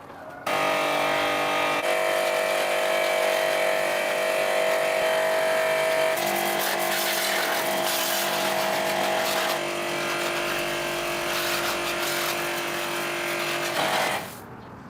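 A motor running steadily at a fixed speed, stepping to a different pitch twice, then cutting off abruptly near the end.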